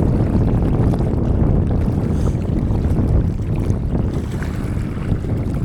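Strong wind buffeting the microphone: a loud, continuous low rumble.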